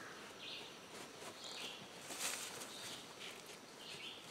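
Quiet woodland sound: a bird gives a short call about once a second, and soft rustling comes as the canvas cot's loops are slid along the rope, strongest a little past the middle.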